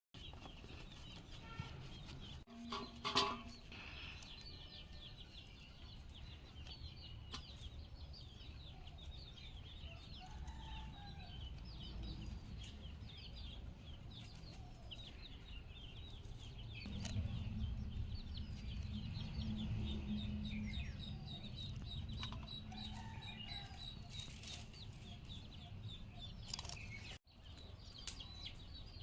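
Birds chirping steadily with chickens clucking, a louder call about three seconds in. A low hum sits underneath for a few seconds in the middle.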